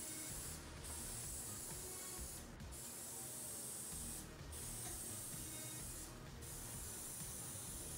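Aerosol spray adhesive hissing from a can in repeated sweeps, each about a second and a half long with brief breaks between them, as glue is laid down on the table board for the felt.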